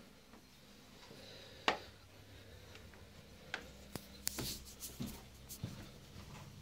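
Handling noise from a phone camera being carried while walking: scattered soft knocks and rubbing, the sharpest click about a second and a half in, over a faint steady low hum.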